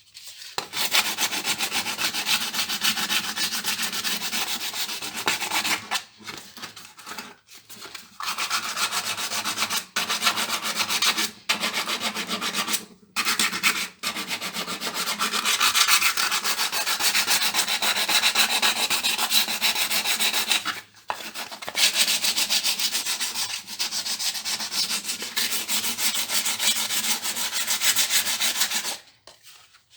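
Sandpaper rubbing steadily over hardened epoxy filler on a steering wheel rim, smoothing the repair, with several brief pauses. It stops near the end.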